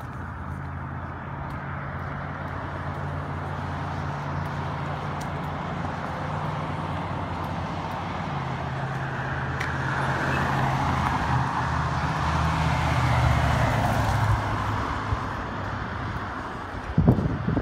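Road traffic on a multi-lane street: a steady low engine drone throughout, with a vehicle passing that swells to its loudest about two-thirds of the way in, then fades. A few low thumps right at the end.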